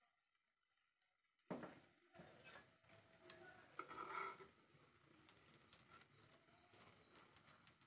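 Faint clicks and scrapes of a stainless-steel spatula on a nonstick frying pan as it lifts and folds a thin rice-flour crepe (patishapta), over a low hiss. It starts suddenly about a second and a half in, after near silence.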